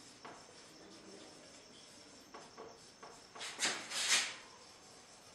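Marker pen squeaking and scratching on a whiteboard in a few short strokes, the two loudest a little past halfway.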